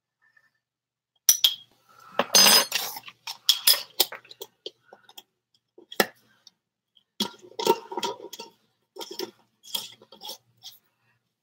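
Metal spoons and pots clinking and clattering in irregular bursts of sharp strokes, starting about a second in: kitchen utensils and cookware being handled while spices are added to pots.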